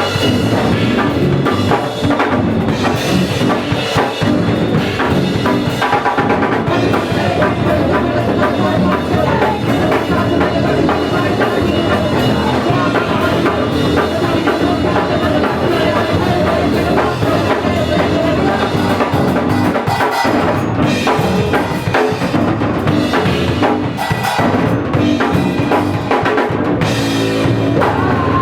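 A drum kit and bass guitar playing punk rock together, the drums hitting densely and without a break.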